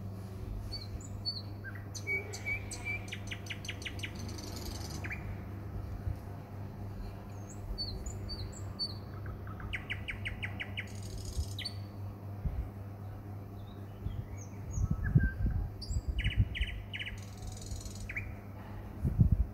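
Wild birds chirping and calling around the garden: short high chirps and several quick rapid trills. A steady low hum runs underneath, and a few low thumps come about fifteen seconds in and again near the end.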